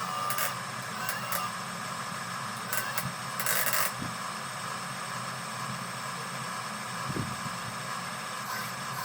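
Electric motors and gearboxes of radio-controlled construction models running steadily with a whirring noise, with a few sharp clicks and a brief hiss about three and a half seconds in.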